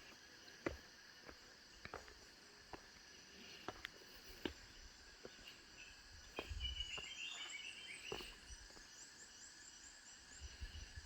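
Faint rainforest ambience: a steady chorus of insects buzzing at several high pitches, with scattered light clicks. A short run of quick bird chirps comes about six to eight seconds in.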